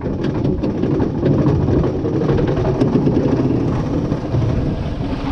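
Zamperla family roller coaster train rolling along its track: a steady rumble from the wheels with a run of rattling clicks.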